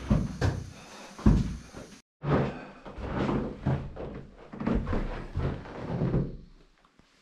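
Repeated thuds and knocks with a sudden break about two seconds in; after it they come about three a second and fade out near the end.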